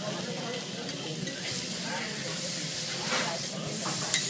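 Beef steak sizzling steadily on a steel teppanyaki griddle, with a few sharp clinks of the chef's metal spatula and knife against the plate, the last near the end.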